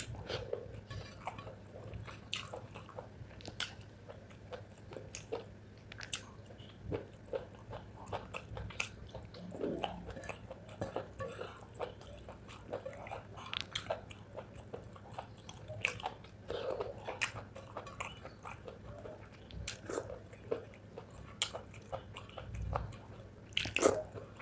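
A person chewing spicy chicken gizzard with rice close to the microphone: a steady run of irregular mouth clicks and smacks, with a louder one near the end.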